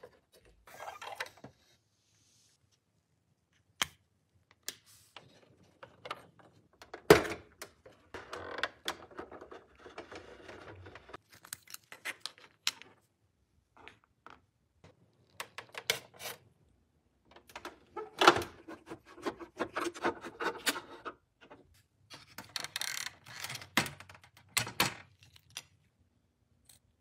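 Hard plastic toy parts handled by gloved hands and set down on a tabletop: scattered sharp clicks and knocks, the loudest about seven seconds in, with stretches of rustling and scraping between them and short quiet gaps.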